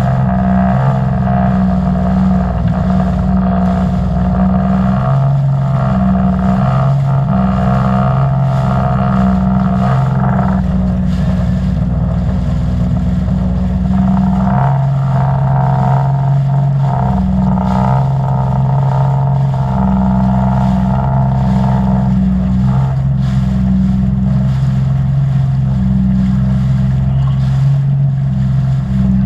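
Sea-Doo personal watercraft engine running steadily on the water, its note shifting now and then between a higher and a lower pitch as the throttle changes, with wind and water noise.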